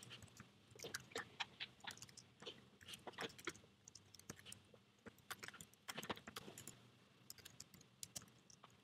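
Faint computer keyboard typing: quick, irregular key clicks in short bursts with brief pauses between them.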